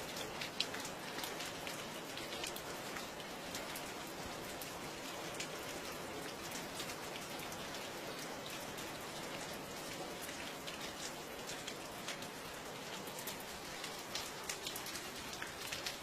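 Steady rain falling, with many distinct drops ticking irregularly on a hard surface over an even hiss.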